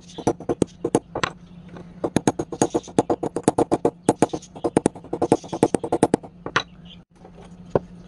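A fast run of sharp, light metal taps on the workbench, about seven a second, for some four seconds, with a few single taps before it and one more near the end; the work is on an antique paint scraper clamped in a small bench vise.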